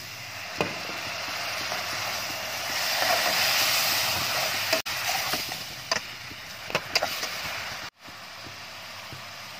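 Water hitting hot oil in a steel pot of frying onion masala, sizzling and hissing as it turns to steam, swelling to its peak about three to four seconds in and then settling to a steady sizzle. A few short scrapes and knocks of a metal spatula against the pot come near the end.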